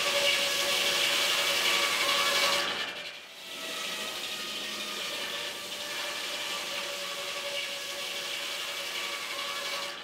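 Water-turbine-driven 52-inch circular saw blade cutting into a log: a steady, harsh sawing sound with a ringing hum. It is loudest for about the first three seconds, then drops briefly and runs on more quietly and evenly.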